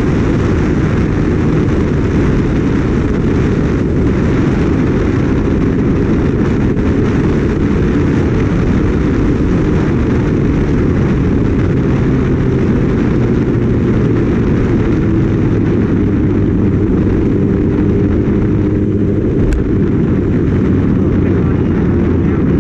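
Wind rushing over the microphone of a Kawasaki Ninja ZX-6R rider on the move, a loud, steady low rumble that all but covers the bike's inline-four engine, heard faintly underneath as shifting tones.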